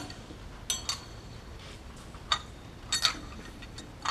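Metal tools and engine hardware clinking as a mechanic works on the turbine section of a Pratt & Whitney PW545A turbofan: short sharp metallic clicks with a brief ring, a pair just under a second in, one past two seconds, another pair around three seconds and one near the end, over a low steady background hum.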